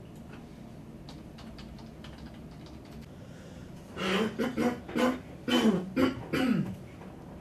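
Faint computer-keyboard typing clicks, then a person coughing and clearing their throat in a quick run of six or seven loud bursts, the last one falling in pitch.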